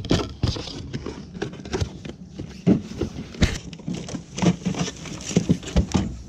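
Irregular knocks, clunks and rustles of gear being handled: a plastic cooler opened and a cardboard box pulled out of it, with a few louder knocks in the middle.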